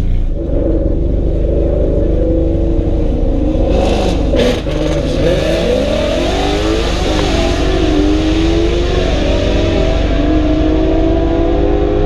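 Volkswagen Jetta's turbocharged 1.8T four-cylinder with a GT28 turbo, accelerating hard through the gears. The engine pitch climbs and drops with each shift. There is a short sharp burst about four seconds in, and a rushing hiss over the middle of the pull.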